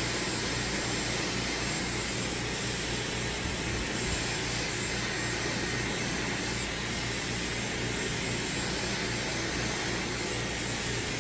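Dyson Supersonic hair dryer running steadily, blowing air with a faint high whine.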